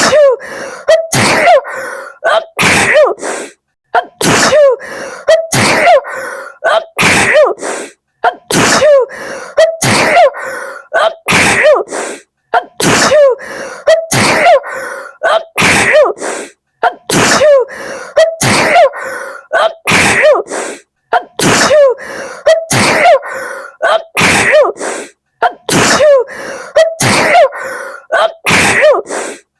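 A woman sneezing again and again in a fit, sharp sneezes coming about once a second with brief gaps between them.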